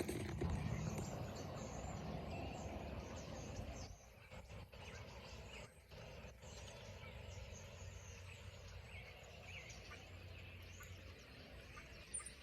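Many small birds chirping and chattering together, a flock calling continuously from the fields. Road traffic rumbles at first and drops away about four seconds in, leaving the bird calls clearer.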